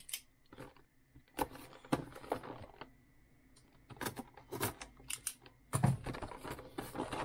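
A cardboard product box being cut open with a small knife and handled: scattered clicks, taps and scrapes of blade and cardboard, busiest about four seconds in and near the end.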